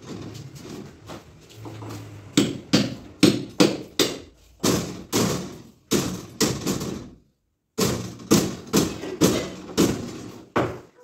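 Repeated hammer blows on masonry, starting about two seconds in and going on at about two to three strikes a second, with a brief pause near the middle.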